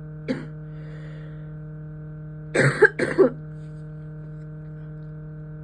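A person coughing with a cough that won't stop: one short cough, then about two and a half seconds in a quick run of several harsh coughs. A steady low hum runs underneath.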